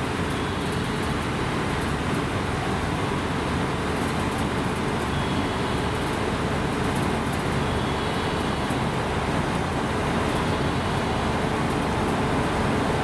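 Train running, a steady rumble that swells slightly near the end, with faint clicking in the middle.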